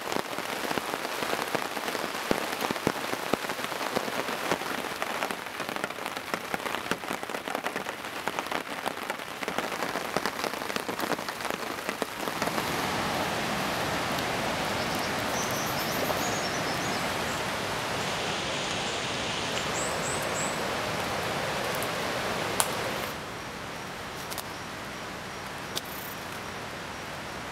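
Heavy rain in a tropical forest. For the first dozen seconds, close drops tap sharply against nearby surfaces over the hiss of the rain. Then comes a denser, steady rain hiss, which drops to a softer hiss about 23 seconds in.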